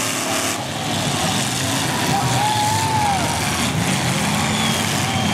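Several demolition derby cars' engines running hard together in a steady, loud din. A wavering squeal, like spinning tires, rises and falls about two seconds in, with voices underneath.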